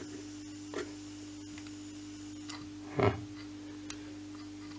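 Steady low electrical hum with a few faint ticks as wires are held against the circuit board, and one short louder noise about three seconds in.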